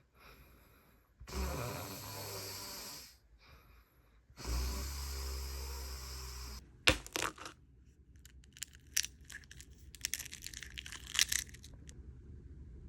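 A man snoring: two long snores of about two seconds each, a second or so apart, followed by a scatter of short clicks and crackles.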